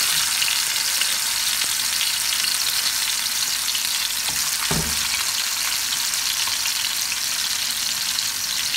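Yogurt-marinated chicken tikka pieces frying in hot oil in a frying pan: a steady crackling sizzle, with a brief low bump about halfway through.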